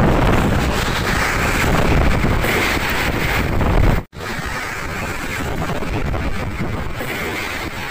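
Wind buffeting the microphone over a loud, steady rushing noise; the sound cuts out for an instant about four seconds in and resumes slightly quieter.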